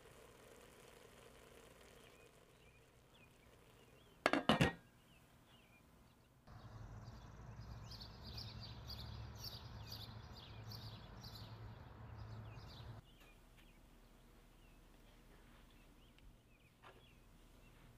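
A brief, sharp clatter of kitchenware about four seconds in. Then birds chirping over a low steady rumble in a forest for about six seconds, before it drops back to quiet room tone.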